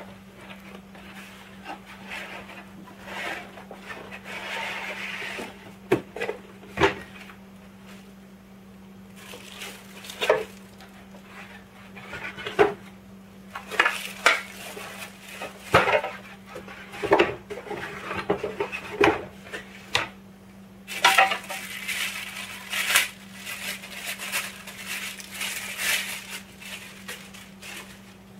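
Packaging being handled: a cardboard box, molded pulp packing inserts and a plastic bag around a digital shipping scale, giving irregular scrapes, knocks and crinkling that get busiest in the last third. A faint steady hum runs underneath.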